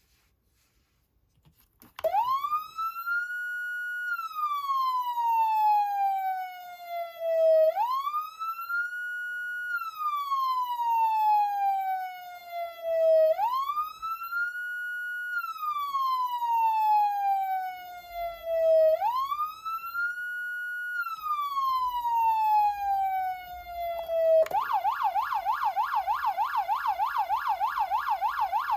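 Code 3 MicroCom 2 electronic siren amplifier sounding a police wail tone, starting about two seconds in: four slow cycles, each a quick rise in pitch, a short hold at the top and a long fall. Near the end it switches to the fast up-and-down yelp tone.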